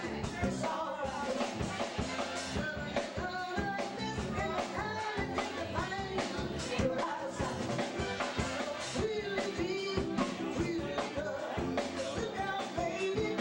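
Live band music: singers at the microphones over a steady drum kit beat and guitar.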